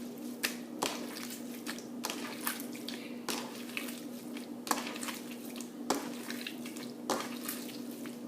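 Runny homemade slime being stretched and handled, giving irregular wet clicks and squelches as it pulls apart; it is falling apart because it has too much water in it. A steady low hum runs underneath.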